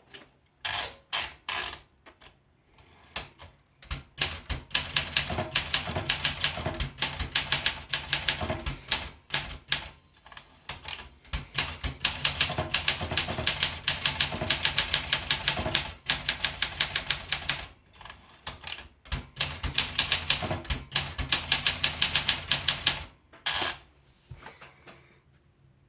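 Olympia SM8 manual typewriter being typed on: a few single keystrokes at first, then fast runs of key strikes broken by short pauses.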